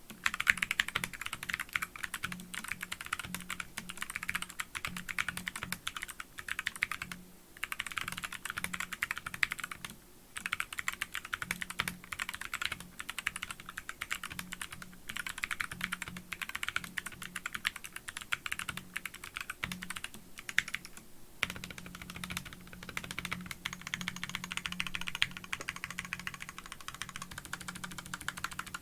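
Typing sound test on a custom GMMK TKL hot-swappable mechanical keyboard fitted with pre-lubed box white tactile switches: fast, continuous keystroke clacking with brief pauses a few times.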